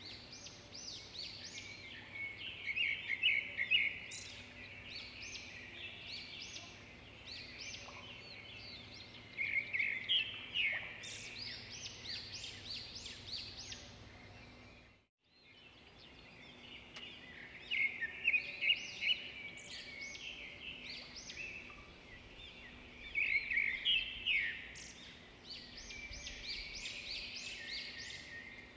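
Small birds chirping in quick runs of short, high notes over a faint steady hiss. The sound drops out completely for a moment about halfway through, then the chirping resumes.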